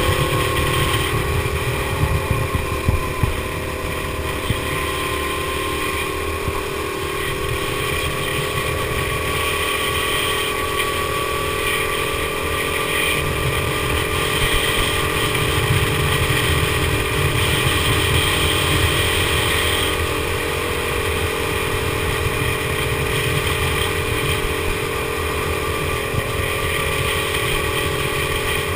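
Go-kart engine running at speed through a lap, its note rising and falling gently as the throttle changes, with heavy wind rumble on the onboard microphone.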